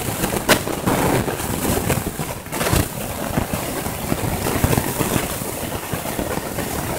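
Rushing, crackling outdoor noise of wind and handling on a phone microphone beside a road, with passing traffic underneath; irregular knocks and crackles come throughout.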